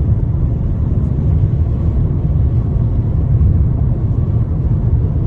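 Strong, gusty wind in a dust storm making a steady low rumble around a car and over the microphone.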